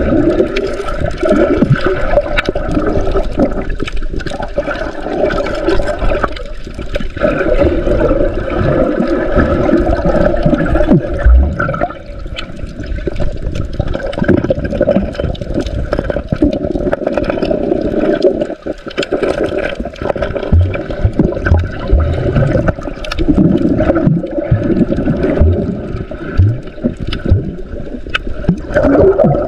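Muffled water sloshing and gurgling around a camera held underwater, a steady rushing with scattered small clicks and knocks and a few brief lulls.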